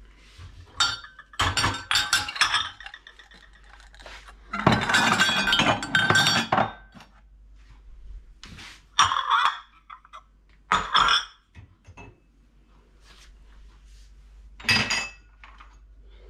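Dishes, cups and cutlery clinking and clattering as they are handled and stacked, in several separate bouts, the longest and loudest a few seconds in.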